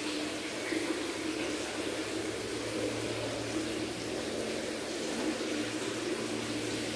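Steady bubbling and water noise of a running aquarium filter, with a faint low hum underneath.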